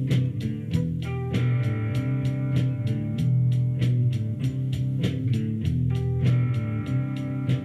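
Guitar music with a steady beat of sharp ticks, about four a second.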